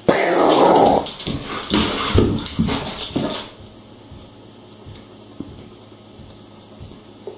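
A young German Shepherd making a string of short whining and grumbling noises that stop about three and a half seconds in.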